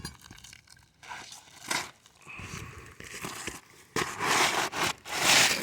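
Brittle asphalt roof shingles being handled and worked, with crinkling and scraping, in short bursts at first and two louder, longer scrapes in the second half.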